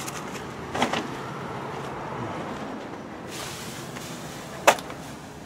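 Trash being rummaged through in a dumpster: plastic bags and packing material rustling, with a few sharp knocks about a second in and a single one near the end, over a faint steady low hum.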